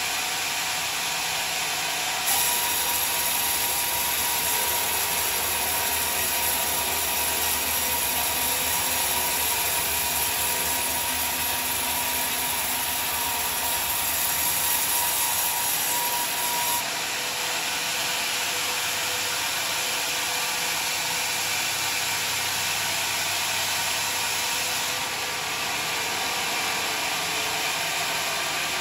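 Band sawmill running with its blade cutting through a beam of rotten johar wood, a steady sawing noise. The sound gets louder and brighter about two seconds in and drops back about seventeen seconds in.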